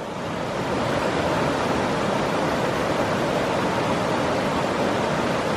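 Mountain creek rushing over rocks: a steady wash of running water that swells over the first second and then holds level.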